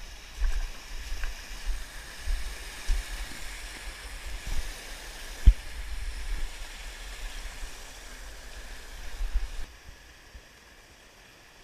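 Rushing water hissing steadily, with scattered low bumps and knocks on the camera and one sharp knock about five and a half seconds in. The rushing stops shortly before the end.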